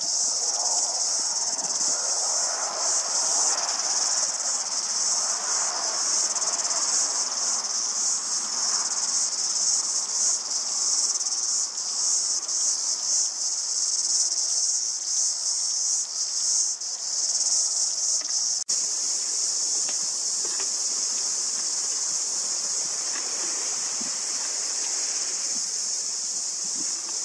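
A dense chorus of insects shrilling, a high, continuous buzz with a rapid flickering pulse, broken by a brief dropout about two-thirds in and steadier after it.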